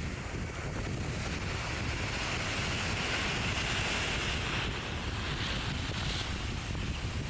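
Wind buffeting the microphone, with a heavy low rumble, over the rushing wash of surf on a beach.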